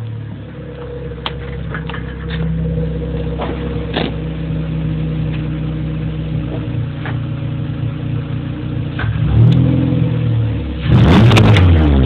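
Volkswagen Polo's engine running at a steady idle, blipped briefly about nine seconds in, then revved hard near the end, much louder, its pitch sweeping up and down.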